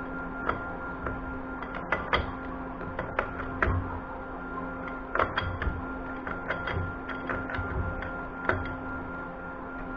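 Metal tools and small metal parts clicking and tapping irregularly, about twenty sharp clicks and knocks, over a steady hum.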